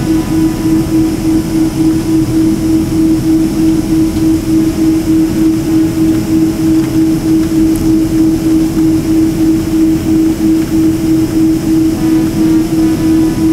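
Jet airliner engines humming steadily, heard from inside the cabin while the plane taxis: one strong unchanging drone over a rushing noise.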